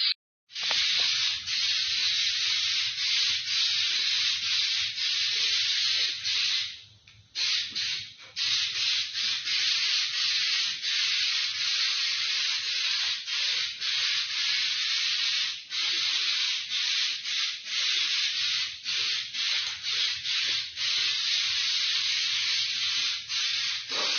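Aerosol can of Duplicolor truck bed coating spraying a steady hiss in long passes, with many brief let-ups and one longer pause about seven seconds in.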